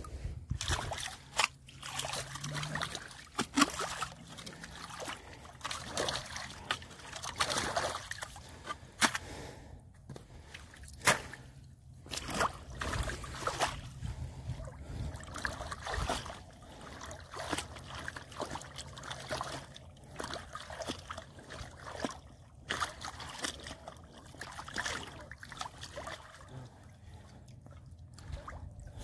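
A spade digging out wet mud in shallow water to make a trap bed, with water sloshing and trickling as mud is worked and lifted. The sound comes in irregular bouts with short knocks.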